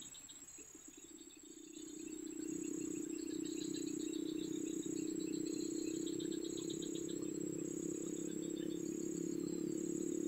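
Insects calling, crickets among them: repeated pulsed trills and a thin, steady high buzz. Under them runs a steady low drone that fades out briefly at the start and comes back about two seconds in.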